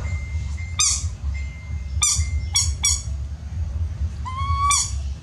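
Baby monkey giving a series of short, high-pitched calls, then a longer call near the end, calling for its mother. A steady low hum runs underneath.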